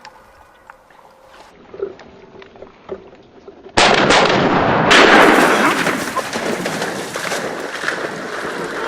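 Two shotgun shots about a second apart, the first about four seconds in, followed by a loud noisy wash that slowly fades.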